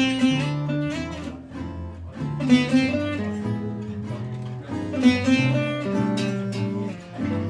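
Gypsy jazz played on two acoustic guitars and a double bass. One guitar picks a single-note melodic line while the other strums rhythm chords, and the double bass plucks walking bass notes underneath. No vocals.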